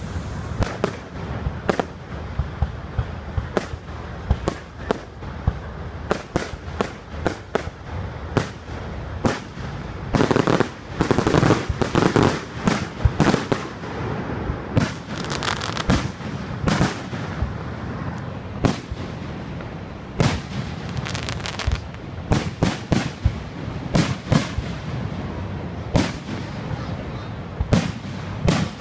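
Aerial firework shells bursting in a rapid, irregular barrage of bangs, thickest for a few seconds around the middle.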